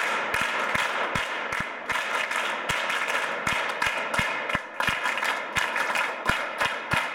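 A roomful of students applauding: many hands clapping at once, with single sharper claps standing out.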